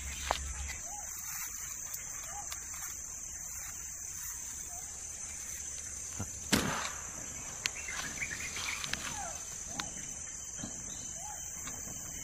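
Insects droning steadily at a high pitch in woodland, with faint short bird chirps now and then. A few light rustles and crunches of dry leaves are heard, the loudest about six and a half seconds in.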